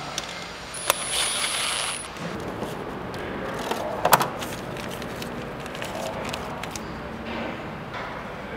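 A cordless drill-driver runs for about a second, spinning a screw into the oil cooler on the oil filter housing, with a steady high whine. Sharp metallic clicks follow as parts are handled and set down, then lighter handling noise of parts and a plastic parts bag.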